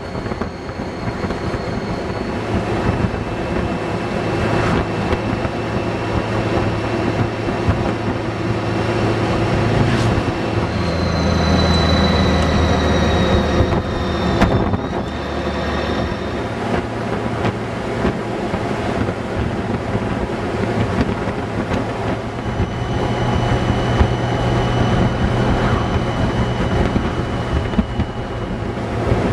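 Honda Gold Wing motorcycle riding at road speed: a steady engine hum under wind and road noise, its low note changing pitch a few times.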